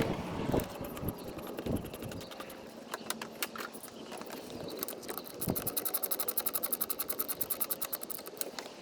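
A quarter-inch ratchet tightening radiator hose clamps: scattered clicks and knocks, then a fast, even run of ratchet clicks, about ten a second, for a couple of seconds past the middle.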